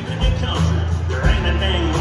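Live country band playing, with a man's lead vocal over electric guitars, keyboard, bass and drums keeping a steady beat.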